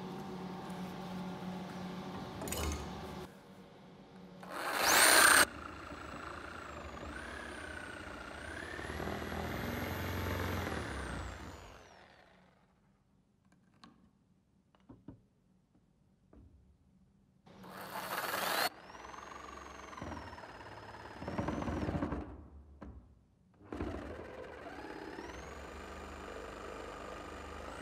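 Small band saw running and cutting through a wooden block, its motor whine rising and falling in pitch as the blade takes the load. There are two short loud bursts, about five seconds in and again at about eighteen seconds, and a near-quiet stretch in the middle.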